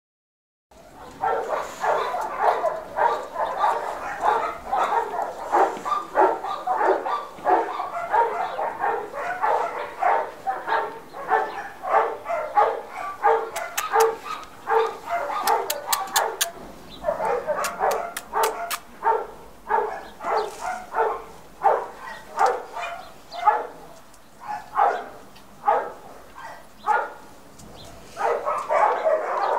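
Dog barking over and over, several barks a second, with brief let-ups about halfway through and near the end. A few sharp clicks come near the middle.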